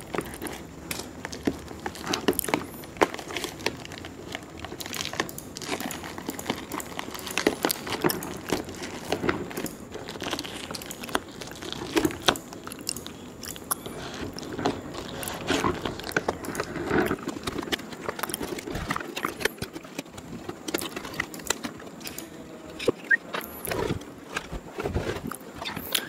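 Scissors cutting and hands tearing and peeling brown paper wrapping and tape off a plastic crate: a run of irregular crackles, snips and short ripping rasps.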